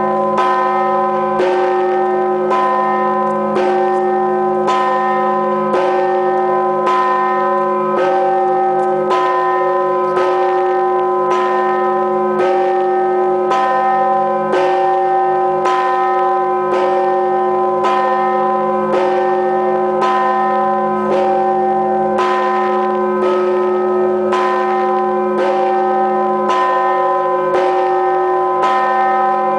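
Large Orthodox church bell tolled at a steady, unhurried tempo of about 54 strokes a minute. Each stroke sounds a rich cluster of tones that rings on into the next.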